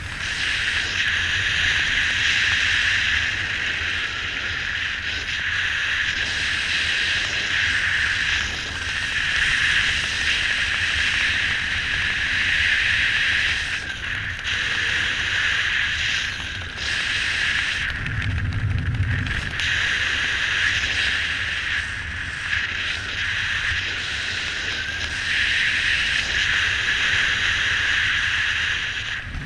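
Airflow rushing over a helmet-mounted camera during flight under an open parachute canopy: a loud, steady hiss with a whistling edge, broken by a low buffeting gust of wind on the microphone about two-thirds of the way through.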